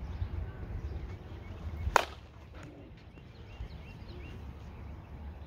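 Slowpitch softball bat striking the ball once, about two seconds in: a single sharp crack with a brief ringing ping.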